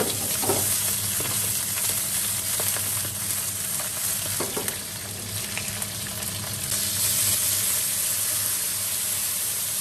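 Chicken wings sizzling in hot oil in a wok, with a metal ladle scraping against the pan twice. About seven seconds in, cola is poured into the hot wok and the sizzle gets louder.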